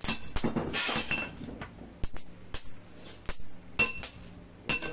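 Hammer blows on a red-hot blade of truck leaf-spring steel held on a small anvil: about a dozen irregular strikes, a few with a short metallic ring.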